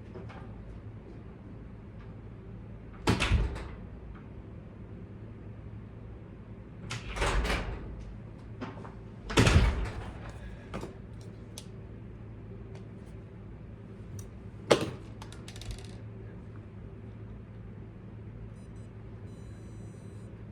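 A few separate knocks and clatters of small objects being handled and set down on a work surface, spread through the stretch, the last a sharp click, over a steady low hum.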